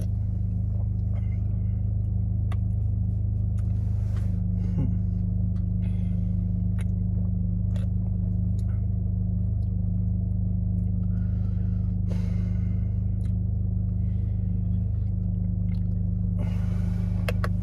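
Steady low hum of an idling car engine, heard from inside the car. A few short, faint noises of sipping from the drink can sit over it, the longest near the end.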